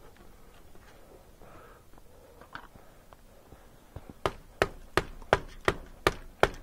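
A run of about seven sharp, evenly spaced clicks, roughly three a second, starting about four seconds in after a quiet stretch.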